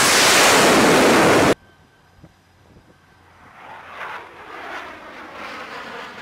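F/A-18 Super Hornet's twin jet engines running loud at full power as it lands and catches the arresting wire, cut off sharply about a second and a half in. After that, wind on the microphone with faint, distant jet engine noise that grows a little near the end.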